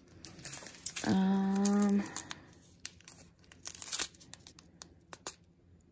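Small plastic bags of diamond-painting drills crinkling and crackling as they are handled. About a second in, a woman's voice holds one steady hummed note for about a second.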